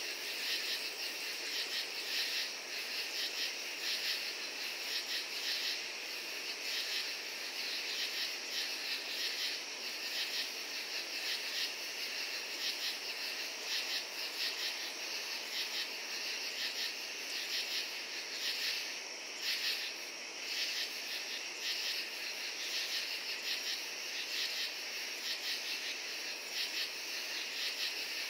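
Dense chorus of crickets and katydids, many overlapping high-pitched pulsing trills at a steady level.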